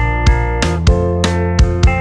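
Background pop music: sustained keyboard and guitar chords over a steady drum beat, with no singing.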